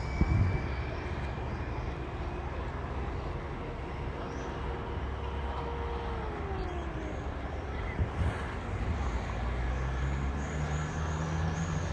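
Race convoy vehicles, team estate cars and a van, driving slowly past one after another, their engines running at low revs. About six seconds in, a tone drops in pitch as one vehicle goes by, and another car's engine hum grows louder near the end.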